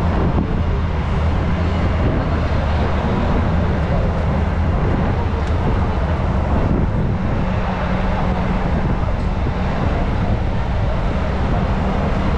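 Tour bus engine running with a steady low drone under a constant rush of traffic and street noise, heard from the bus's open upper deck, with wind on the microphone.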